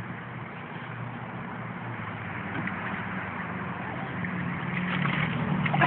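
An engine running steadily, growing gradually louder, with a sharp knock near the end.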